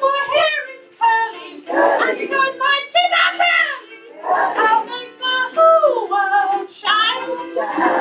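A woman singing a comic song, accompanying herself on a strummed ukulele.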